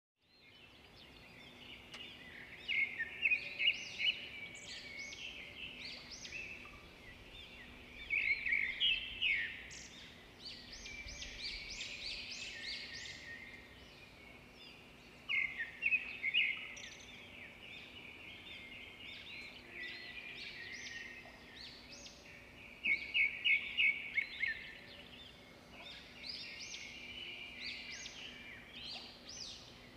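Birds chirping and singing in clusters of quick, high chirps and trills every few seconds, over a faint steady hum.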